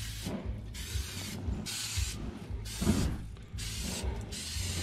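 Aerosol coconut-oil cooking spray hissing in a series of short bursts onto a hot charcoal grill grate.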